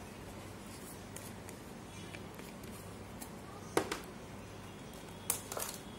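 Low steady hum with a few sharp clicks and taps of kitchen items being handled: one a little before four seconds in and a quick cluster near the end.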